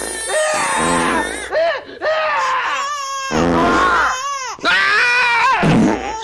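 A baby crying loudly in high, rising-and-falling wails that break off and start again, mixed with screaming.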